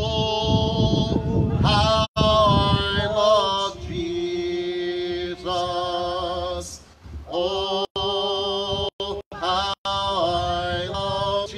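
A man singing a hymn in long held notes with vibrato, accompanied on a Roland keyboard. The sound cuts out for split seconds several times.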